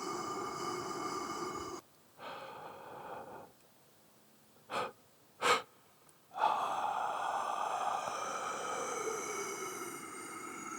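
Electronic noise music: a dense hiss layered with steady tones cuts off suddenly about two seconds in. A quieter burst of hiss follows, then near silence broken by two short, sharp bursts. The full hiss returns abruptly about six seconds in, with a tone falling in pitch near the end.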